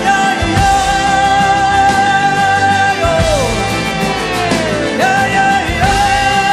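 Music: a long held melody note over a dense backing, sliding down in pitch twice.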